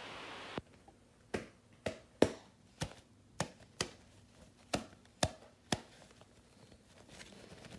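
A short steady hiss that cuts off just after the start, then about ten sharp taps, roughly two a second, that stop about six seconds in.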